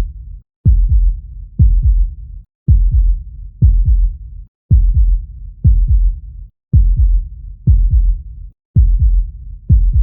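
Human heartbeat sound: deep, dull thumps in a steady rhythm, about one beat a second.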